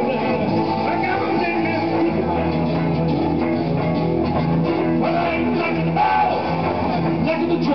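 Live band music led by an electric guitar, over a steady bass line and a box-drum (cajón) beat.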